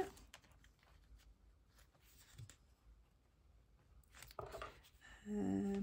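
Quiet desk handling: faint clicks and rustles of fingers working a paper savings-challenge sheet in a ring binder's plastic pocket. Near the end comes a short held hum from a woman's voice lasting about a second.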